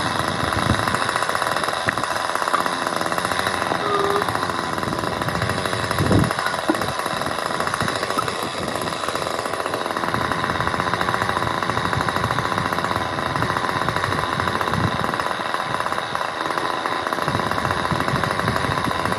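A powered roadworks machine runs steadily with a rapid hammering pulse. There is a dull thump about six seconds in.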